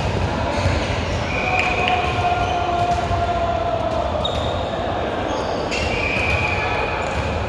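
Indoor volleyball game in a reverberant hall: a hum of voices with the knocks of the ball being hit and bounced, and a few short high squeaks.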